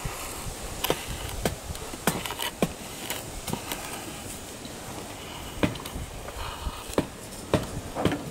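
Hatchet striking a thin stick to split it into kindling: a series of sharp, irregular wooden knocks, about a dozen strikes, the hardest ones in the second half.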